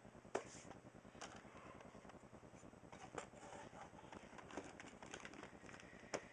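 A handful of faint, scattered clicks and light rustling as a computer motherboard, with a CPU cooler backplate fitted, is handled and turned over on its plastic anti-static bag.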